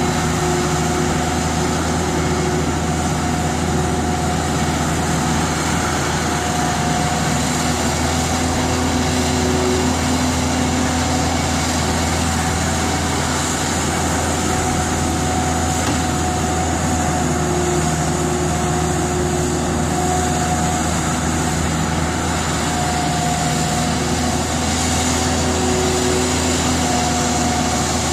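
Caterpillar E120B excavator's diesel engine running steadily while it digs and swings, with a thin whine that comes and goes over the engine note.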